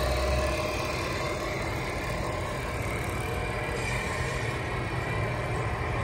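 Engine running steadily with a low rumble, a little quieter after the first second.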